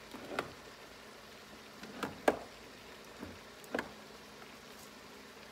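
About five sharp knocks and clatters, the loudest a little past two seconds in, from rummaging for spice jars in a kitchen cabinet. Under them runs the faint steady sizzle of ground beef and onions sautéing in an Instant Pot.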